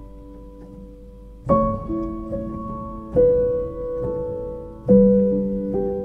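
Background piano music: slow, sustained notes and chords, a new one struck every second or two and left to ring.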